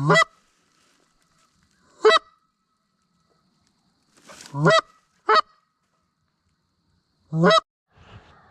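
Geese honking: five loud, separate honks, each sweeping up in pitch, spaced a second or two apart.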